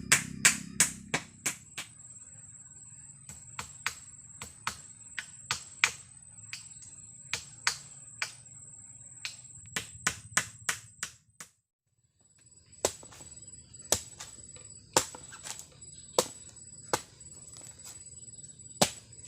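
Sharp, irregular knocks or chops, several a second at first and sparser later, over a steady high-pitched insect drone. Everything drops out briefly about two-thirds of the way through.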